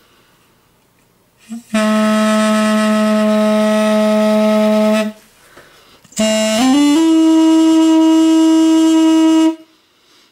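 Double-reed wind instrument playing two long held notes. The first is low and steady. After a short breath, the second climbs by a few quick steps to a higher note and is held.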